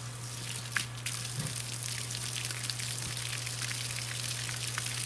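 Water from a garden hose spraying and splashing as a small bream's gutted body cavity is rinsed out, over the steady hum of a camp water pump.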